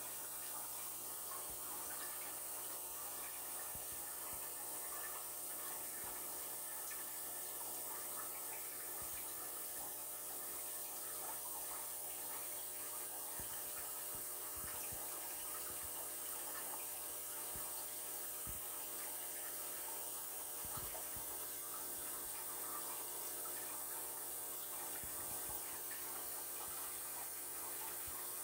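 Steady trickle and hiss of running water in an aquarium, with a few faint low thumps in the middle.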